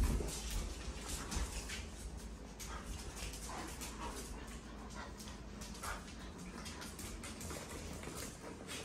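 A yellow Labrador, a German Shepherd and an Australian Shepherd puppy play tug-of-war over a rope toy on a hard floor. There is busy scuffling with many short ticks of claws and paws, and now and then a brief dog sound.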